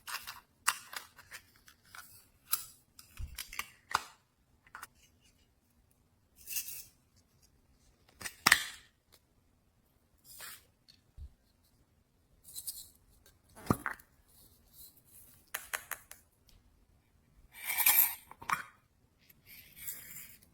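Slime being handled and mixed, with irregular sticky clicks and crackles and short quiet gaps between them.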